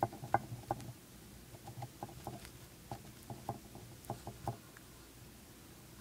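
Dwarf hamster gnawing on a cheese chew of wheat gluten, dried rice and corn: quick runs of small crunches and clicks, stopping about four and a half seconds in.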